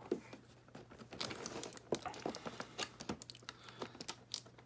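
Fingers and fingernails picking and tapping at the cardboard tabs of a toy box, trying to work them loose: a scatter of irregular light clicks and scratches.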